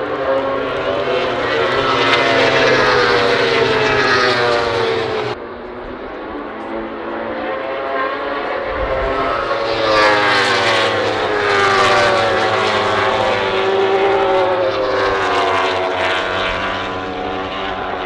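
A pack of World Superbike racing motorcycles going past at high revs, their engine notes sweeping up and down in pitch as they pass. The sound cuts off abruptly about five seconds in, and a second, louder wave of bikes passes from about ten seconds in.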